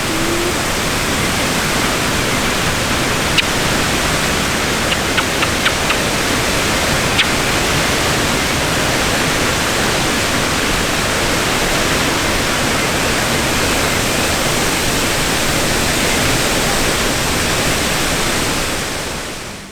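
Fountain water splashing, a steady, even rush of falling water. A few faint short clicks come through a few seconds in, and the sound fades out near the end.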